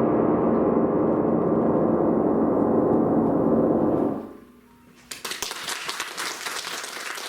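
Closing chord of a live classical performance of a bell-imitating piece, many pitches held ringing at a steady level and then damped about four seconds in. After a brief hush, audience applause breaks out about five seconds in.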